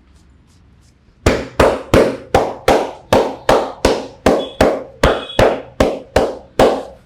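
Rhythmic percussive slaps of a barber's hands on a client's head during an Indian head massage: about sixteen sharp claps at roughly three a second, starting about a second in.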